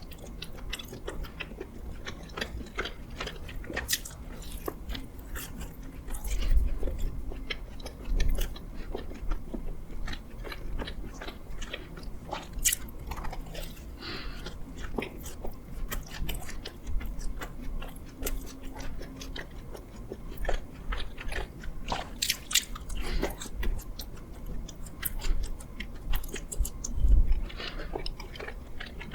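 Close-miked mouth sounds of someone biting and chewing doughnuts: irregular wet smacks and clicks, with a few louder bites.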